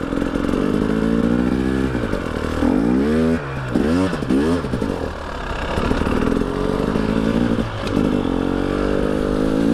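KTM EXC 300 TPI single-cylinder two-stroke enduro engine under way, revs rising and falling with the throttle, with several quick rev rises and drops about three to four and a half seconds in.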